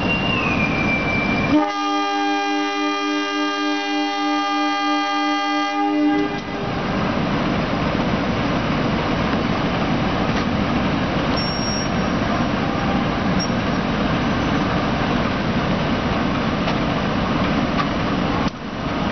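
Diesel locomotive horn sounding one long, steady multi-tone blast of about four seconds, starting about one and a half seconds in, as the train approaches the station slowly. The locomotive's engine and the train's rumble run steadily under it and on after the horn stops.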